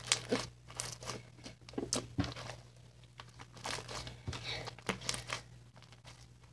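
Hands kneading, squeezing and stretching fluffy diaper slime (glue slime mixed with the water-swollen gel of a cut-up diaper), giving an irregular run of short, sharp crackles and sticky pops that thins out near the end.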